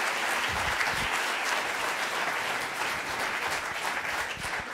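An auditorium audience applauding steadily after a keynote talk, fading slightly near the end.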